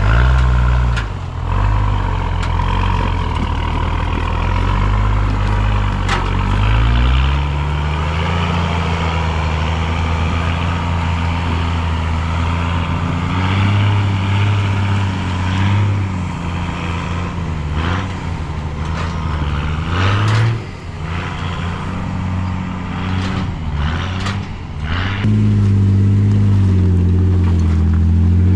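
Four-wheel-drive's engine revving up and down under load as it crawls up a rough climb, with several sharp knocks in the second half.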